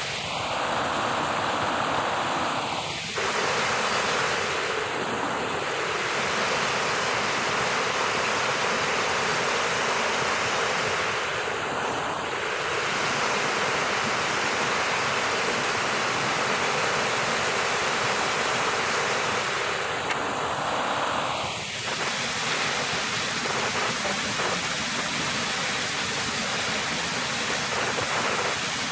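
Water of a small, partly frozen cascade rushing and splashing over rocks, a steady noise heard close up.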